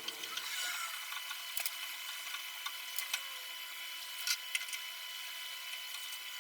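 A few faint, sharp clicks and taps of small hand tools on a circuit board over a steady hiss.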